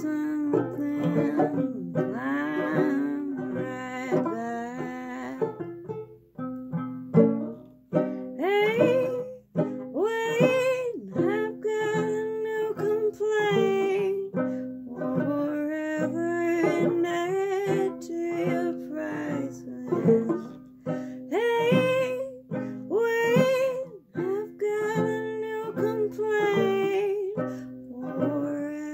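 A woman singing while plucking a small banjo, strummed notes running steadily under her voice.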